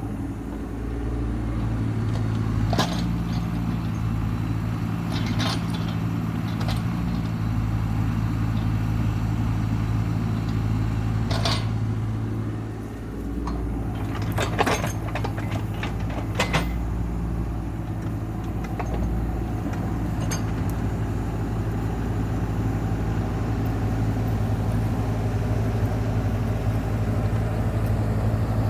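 Heavy land-clearing equipment engine running steadily, with its level dipping briefly about halfway through. Several sharp clanks or knocks sound over it during the first half.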